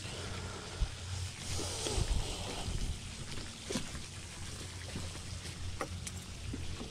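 Footsteps across wooden deck boards, with a rustle about two seconds in and a few sharp knocks in the second half, over a low steady rumble.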